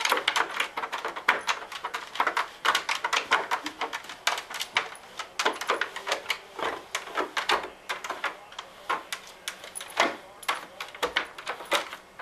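Plastic laundry basket clattering and scraping on carpet as a dachshund paws at it and shoves it around: rapid, irregular clicks and knocks, several a second.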